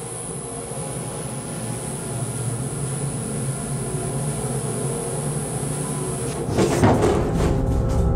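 Elevator car running, a low rumbling drone with a faint high whine that grows steadily louder, then a short burst of clanking and rattling about six and a half seconds in as the car jolts to a stop, the whine cutting out with it.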